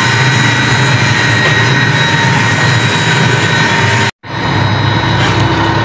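Mustard-oil expeller and mill machinery running: a loud, steady mechanical drone with a deep hum and a thin whine over it. It breaks off abruptly for an instant about four seconds in, then runs on.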